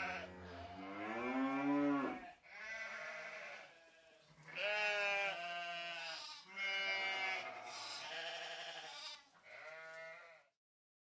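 Sheep bleating: a run of about six bleats in a row, each a second or two long with a wavering pitch.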